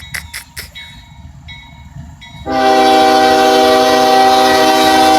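Freight locomotive's multi-chime air horn sounding one long, steady blast that starts about halfway in, after a few sharp clicks near the start.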